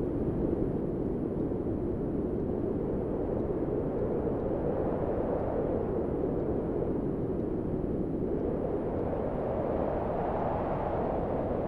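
High wind made with a synthesiser: steady filtered noise whose pitch drifts slowly up and down as the filter cut-off is moved, rising toward the end.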